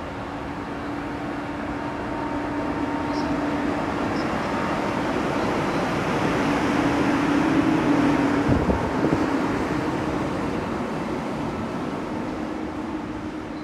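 ZSSK class 350 electric locomotive pulling a passenger train away, running past close by with a steady electric hum. The hum builds to its loudest about eight seconds in, with a single sharp knock there, then fades as the locomotive moves off.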